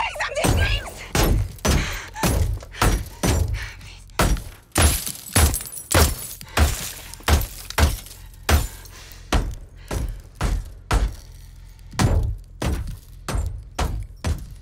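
Bullets striking the bulletproof windows of an Aston Martin DB5, heard from inside the car: a long, uneven run of heavy impacts, about two a second, each a deep thud with a crack of glass.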